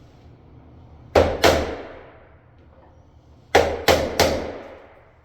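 A chisel struck sharply five times, in a pair and then a run of three, cutting a mortise for a deadbolt's bolt into a door edge. Each blow rings briefly.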